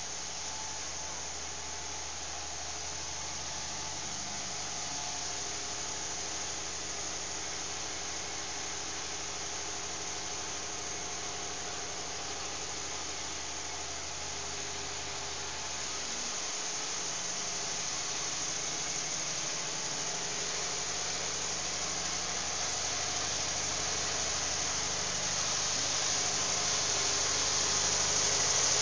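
Biomass gasifier power plant machinery running steadily. The gas-fuelled engine generator set, blower and pumps make a continuous engine hum over a hiss, which grows louder near the end.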